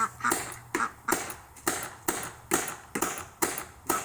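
AGD Automag pneumatic paintball gun firing in quick succession, about a dozen sharp pops at roughly three a second. It is being test-fired with old paintballs to show that it still cycles and shoots.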